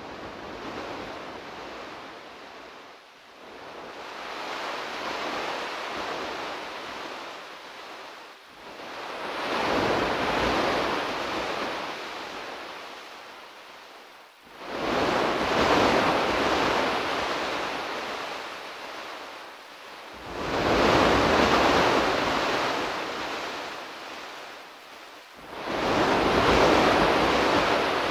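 Ocean waves breaking and washing back in slow surges, about one every five to six seconds. Each surge is louder than the one before.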